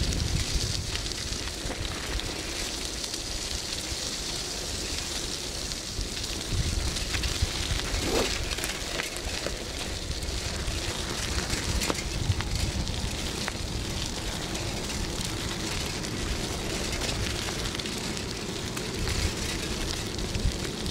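Wind buffeting the microphone outdoors: an uneven low rumble with a steady crackling hiss over it.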